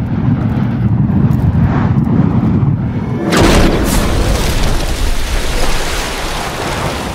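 Logo-intro sound effect of a fiery explosion: a low rumble for about three seconds, then a sudden loud blast that slowly dies away.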